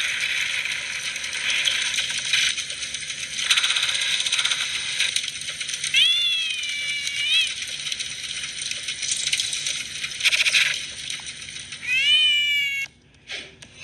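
A cat meowing twice, once about six seconds in and again near the end, each call rising and then bending in pitch. Under it runs a continuous rattling noise.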